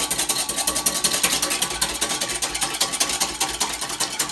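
Wire whisk beating cream into egg yolks in a glass bowl, its wires clicking rapidly and steadily against the glass, about eight to ten strokes a second.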